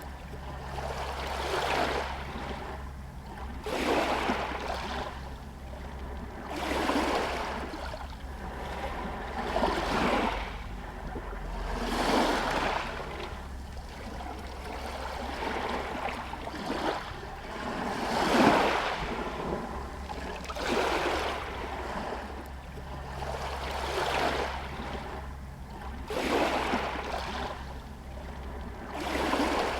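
Small Adriatic Sea waves lapping against a harbour pier and stones, a splashing swell coming every two to three seconds over a steady low rumble.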